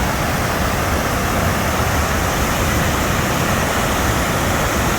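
Wapta Falls, a large waterfall on the Kicking Horse River, making a loud, steady rush of falling water.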